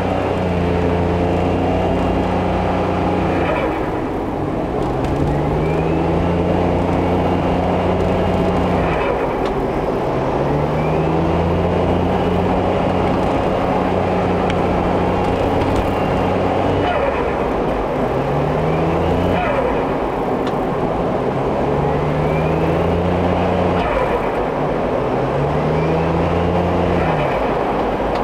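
Suzuki Every Wagon DA64W's turbocharged engine accelerating and lifting off about six times, a high turbo whine rising with each pull. At each throttle lift-off comes a short squeal, a back-turbine (compressor surge) noise typical of a faulty air bypass valve or 3-way solenoid valve.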